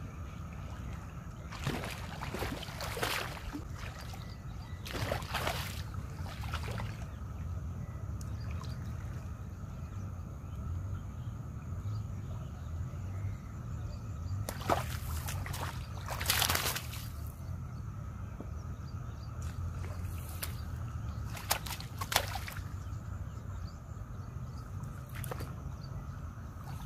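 A hooked snakehead (murrel) thrashing and splashing at the surface as it is played on a rod, in several bursts, the loudest about two, five and fifteen seconds in, with a few sharp clicks later on, over a steady low rumble.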